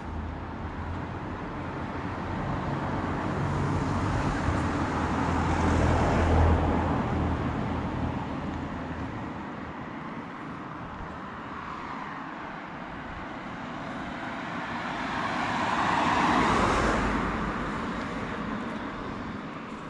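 Road vehicles passing close by: a low engine hum and tyre noise swell and fade about six seconds in, and a car passes again, swelling and fading, about sixteen seconds in.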